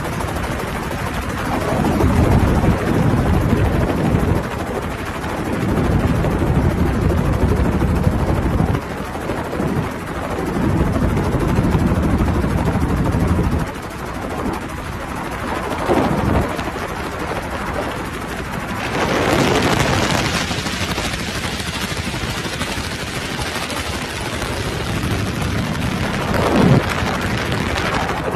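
Helicopter running: a continuous low rumble that swells and fades every few seconds, with a hiss joining about two-thirds of the way through.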